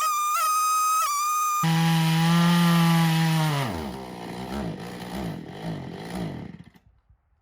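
Jonsered 670 chainsaw on an Alaskan mill running at full throttle, first at a high pitch, then after an abrupt change at a lower steady pitch. About halfway through the throttle is let off: the revs drop, run unevenly, and the engine stops near the end.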